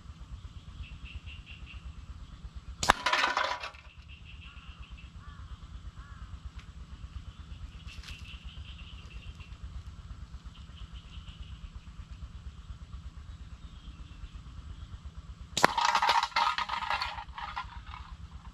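Two slingshot hits on empty drink cans: a steel ball strikes a can with a sharp clank about three seconds in and again near the end. Each hit is followed by the can rattling and tumbling across the gravel, the second clatter lasting longer.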